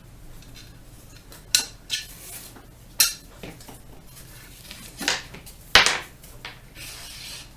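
A handful of sharp metallic clinks and knocks, spaced irregularly, from rifle parts and a bore snake being handled during barrel cleaning. The loudest knock comes about two-thirds of the way through.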